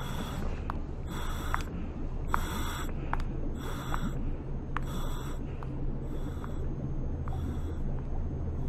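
Cartoon machine sound effects: a steady low hum with a short hissing pulse and click repeating about once a second.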